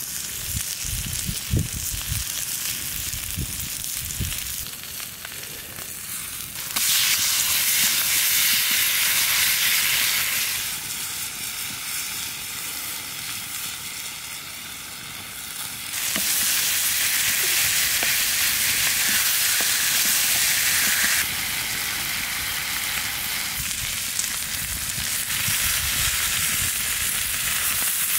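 Tomahawk ribeye steaks sizzling steadily on a hot stone slab over a wood fire. The hiss steps abruptly louder and softer several times, with a few low thumps in the first seconds.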